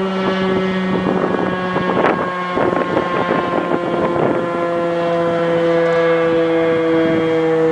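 Outdoor warning sirens sounding a steady tone that shifts slightly lower about halfway through, with wind gusting on the microphone in the middle.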